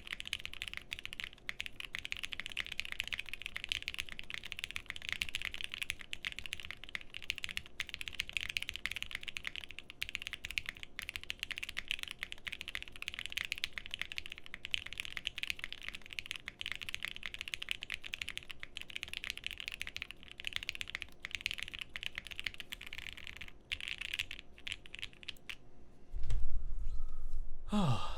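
Continuous typing on a mechanical keyboard with Gateron Black Ink linear switches, lubed with 205g0 and filmed, in a POM plate under GMK keycaps, picked up close with the mic directly on top of the board. Near the end the typing thins out and a loud low rumble starts.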